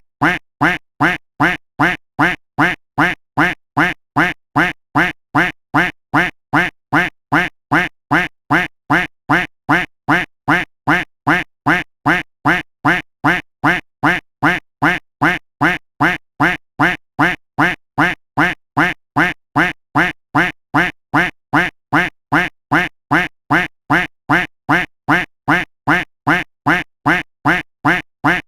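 Duck quack sound effect looped: the same single quack repeats at an even pace, about two quacks a second, each one identical.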